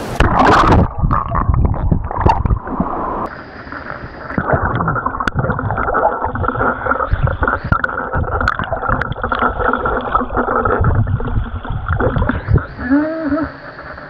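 Stream water gurgling and sloshing close to the microphone as someone moves through a shallow mountain stream.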